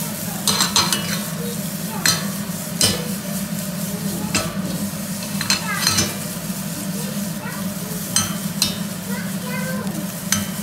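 Squid pieces sizzling in a non-stick frying pan that is being tossed and shaken over a gas burner. The pan knocks and scrapes on the burner grate about ten times, over a steady low hum.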